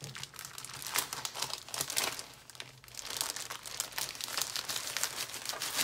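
Clear plastic bag and cello-wrapped paper packs crinkling and rustling in irregular crackles as a stack of scrapbooking supplies is slid out of the bag.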